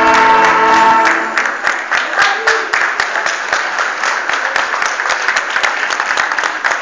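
A band's held final chord cuts off about a second in, followed by audience applause.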